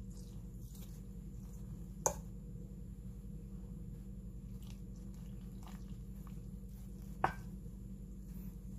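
Metal spoon stirring warm milk into flour in a metal bowl: soft squishing and scraping, with two sharp clinks of the spoon against the bowl, about two seconds in and near the end, over a steady low hum.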